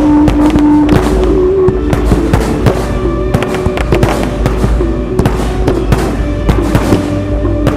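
Fireworks show: a dense run of shell bursts and crackling bangs over the national anthem playing as the show's music.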